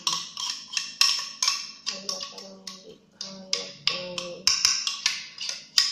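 A kitchen utensil striking a hard container again and again, about three sharp taps a second at an uneven pace, each tap ringing briefly.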